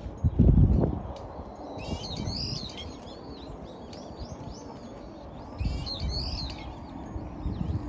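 Small songbirds chirping in quick, repeated arching calls, in several bouts. Low rumbling bursts come and go under them, the loudest about half a second in.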